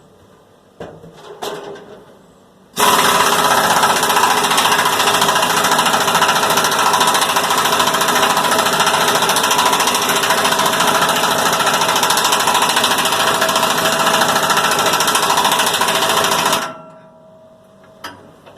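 A machine hammering with a fast, even rattle for about fourteen seconds. It starts abruptly about three seconds in, cuts off abruptly, and leaves a faint fading hum.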